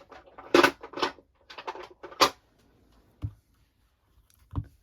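Hard plastic clacks and knocks of a stamping block and stamp being handled on a craft desk: three sharp clacks in the first half with smaller clicks between, then two duller thumps near the end.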